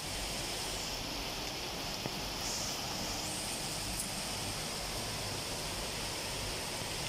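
Heavy rain pouring down in a steady hiss, with a couple of brief faint ticks.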